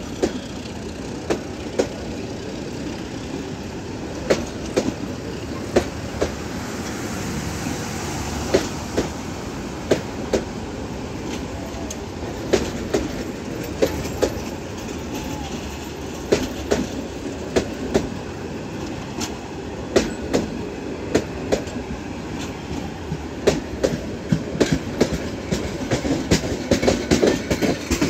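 Passenger coaches rolling past close by on jointed track, with a steady rumble and the wheels knocking over the rail joints every second or two, often in pairs. The knocks come quicker near the end as the train accelerates away.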